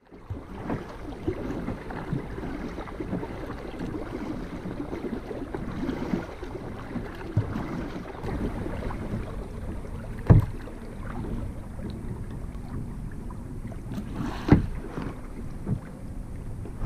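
Kayak paddling on a river: water splashing and swishing with the strokes, broken by a few sharp knocks, the loudest about ten and fourteen seconds in.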